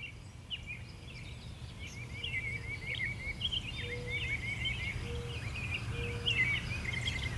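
Outdoor nature ambience: several birds chirping and singing in quick repeated notes over a steady low rumble. In the second half a short low hoot repeats about once a second.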